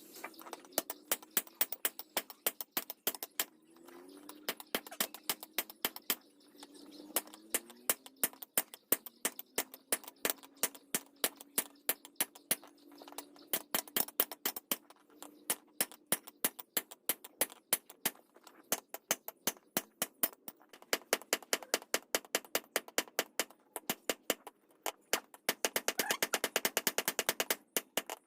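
Repeated sharp hammer taps, irregular at two to four a second, quickening into a fast rapid run near the end, as a khukuri is worked by hand. A faint wavering hum sits underneath.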